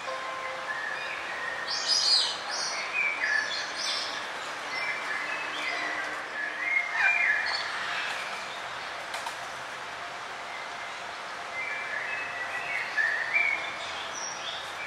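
Several songbirds chirping and calling in a forest, short whistled phrases and tweets overlapping, over a steady hiss of background noise.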